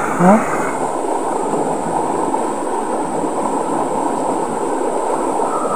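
Steady rushing of shallow stream water running over stones, even and unchanging throughout.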